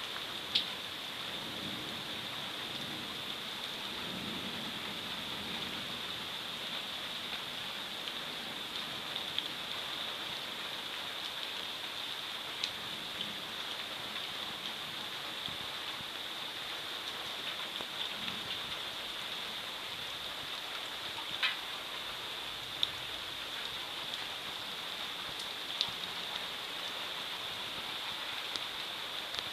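Steady rain falling in a thunderstorm, an even hiss, with a few sharp single drip taps close by.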